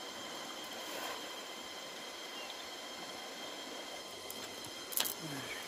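Steady rush of a shallow river running over stones, with a faint steady high whine over it and a single sharp click about five seconds in.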